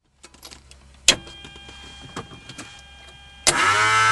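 Switch clicks on a Cessna 172SP's instrument panel, with a sharp click about a second in followed by faint steady electrical tones. Near the end a loud click and an electric motor starts up and settles into a loud steady buzzing hum: the electric auxiliary fuel pump running to prime the fuel-injected Lycoming IO-360 for a cold start.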